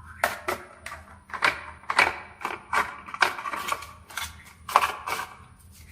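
Marbles clacking and rattling down a HABA wooden marble run: a quick, irregular string of hard clicks and knocks, some ringing briefly.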